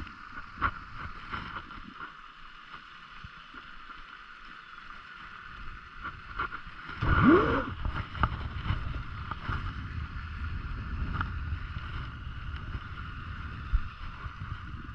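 Outdoor sound of fishing from a small boat on the water: a steady low rumble and a steady high whine. About seven seconds in comes a louder sweep that rises in pitch, and there are scattered light clicks.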